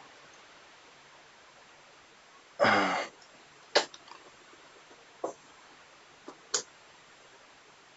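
A few light, sharp clicks of multimeter probes being set on the terminals of a lithium-ion battery pack, with one short rush of noise about two and a half seconds in.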